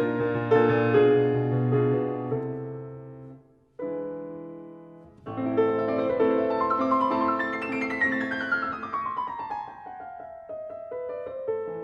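Background piano music: notes fade away, then after a short break the playing resumes with a descending run of notes.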